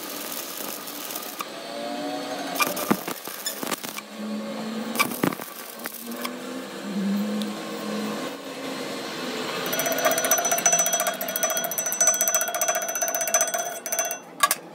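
Stick (arc) welding on a cast axle hub: the electrode's arc crackles and sputters. The crackle becomes dense, fast and even from about two-thirds of the way in.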